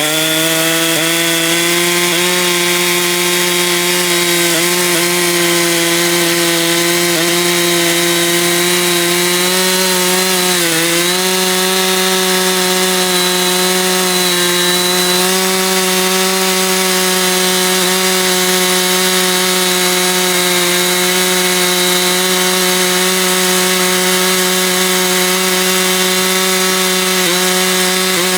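Chainsaw running at steady high speed under load, cutting a log lengthwise in an Alaskan chainsaw mill. Its pitch dips briefly about eleven seconds in as the engine bogs, then recovers.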